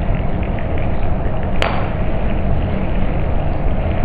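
Carbon disulfide burning with solid nitrous oxide: a steady rushing flame noise, with one sharp pop about one and a half seconds in.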